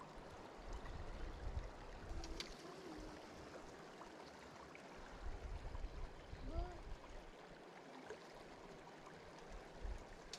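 Shallow gravel-bottomed creek flowing: a quiet, steady rush of running water.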